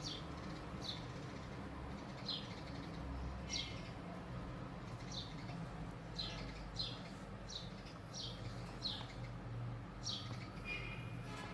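A small bird chirping over and over, short falling chirps about once or twice a second, over a low steady hum.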